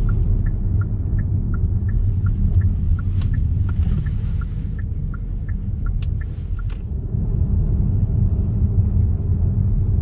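Car cabin road and engine rumble, with the turn-signal indicator ticking in a steady alternating tick-tock, about three ticks a second, that stops about seven seconds in as the turn is completed.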